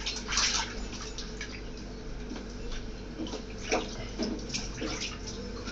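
Bath water splashing and trickling in a plastic baby bath as a hand scoops water over a baby's face and head, in a few short, irregular splashes.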